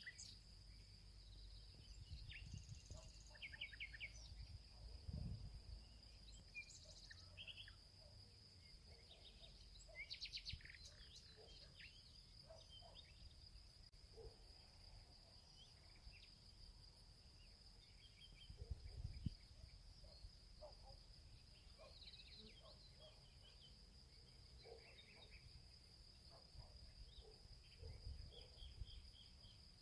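Faint summer forest ambience: a steady high-pitched insect buzz throughout, with scattered short bird chirps and calls. A few soft low thumps come through, the strongest about five and nineteen seconds in.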